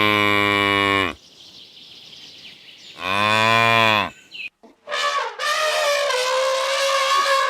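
Cow mooing twice, long steady low moos, the first ending about a second in and the second at about three seconds. A different, higher-pitched steady animal call follows from about five seconds to the end.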